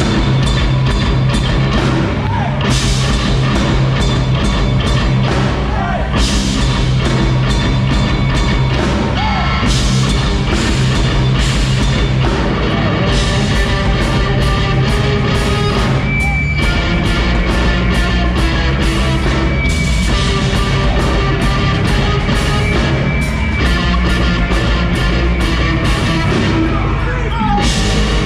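Live rock band playing a loud, full song: drums with repeated cymbal crashes over heavy bass and guitars.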